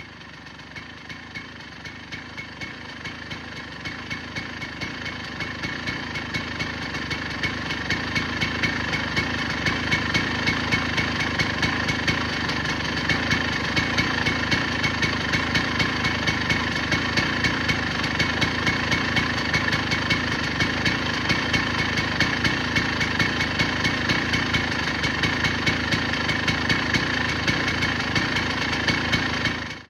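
1998 KTM EXC 250 two-stroke dirt bike engine idling through its new exhaust, with an even beat. It grows louder over the first several seconds and then holds steady.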